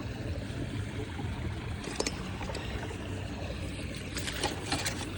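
Shallow creek water running, with a few small splashes and knocks about two seconds in and again near the end as hands reach into the water.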